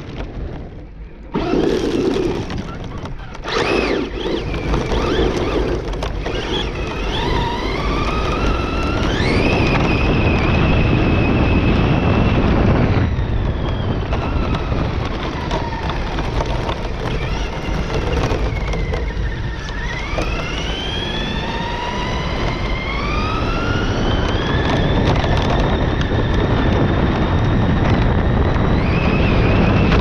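Traxxas Slash 2WD RC truck's electric motor and gears whining, the pitch climbing each time it accelerates, twice in long rising sweeps, over a steady rush of noise from the tyres on loose dirt and gravel.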